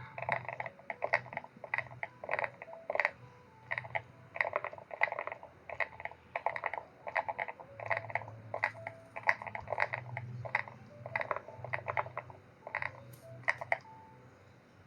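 Irregular runs of quick clicks and taps, several a second in clusters with short pauses between, over a faint low hum.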